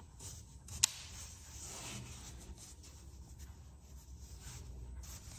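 Faint rubbing and scraping of hands handling a laptop in a plastic hard case, with one sharp click about a second in.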